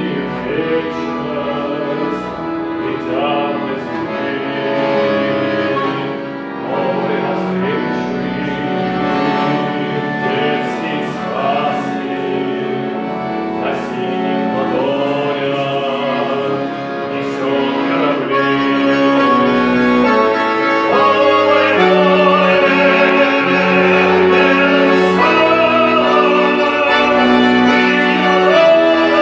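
A song sung by a voice with instrumental accompaniment.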